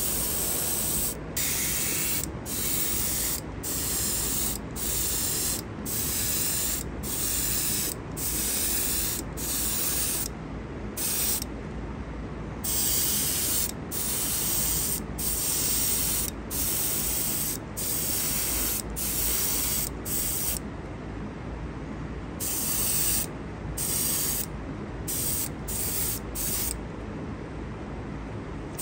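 Airbrush spraying paint onto a diecast model truck body in short hissing bursts, about one a second, with a few longer pauses, over a steady low hum.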